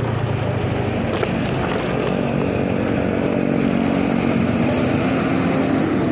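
Motorcycle engine running over a rush of road and wind noise, its pitch rising slowly through the second half as it speeds up.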